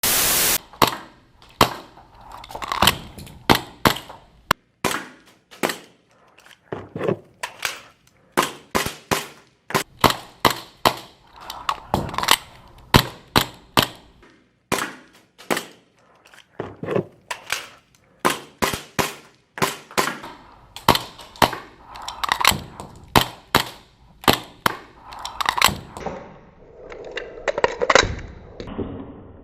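Airsoft guns firing: many sharp shots at irregular spacing, some single and some in quick strings, with a loud blast at the very start.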